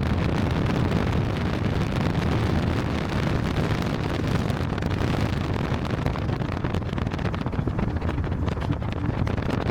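Wind buffeting the microphone, a steady low rumble with a hiss over it.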